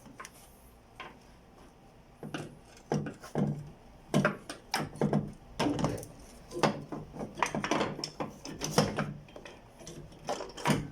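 Irregular knocks, clicks and clinks of hand tools and metal parts being handled while a replacement engine mount is fitted and its bolts are started.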